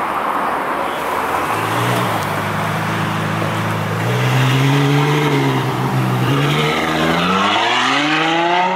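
Ferrari F12's V12 engine, in Onyx F2X conversion, running loud as the car drives up and past; the engine note holds fairly steady, then climbs sharply in pitch near the end as the car accelerates away.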